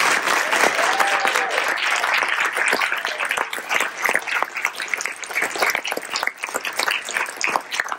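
Audience applauding: dense clapping at first that thins into more scattered, separate claps toward the end.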